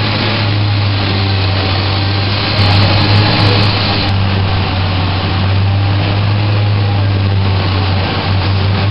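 Steady, loud hum of automatic fabric-cutting and spreading machinery: a strong low drone under an even hiss, with a briefly louder, clicking stretch about three seconds in.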